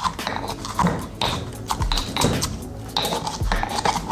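Marble pestle pounding garlic cloves in a marble mortar: a run of uneven stone-on-stone knocks and dull thuds as the cloves are crushed.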